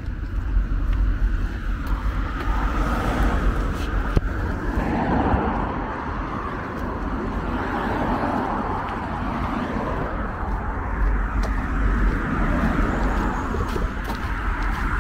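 Outdoor road traffic noise: vehicles passing in a steady wash, over a continuous low rumble.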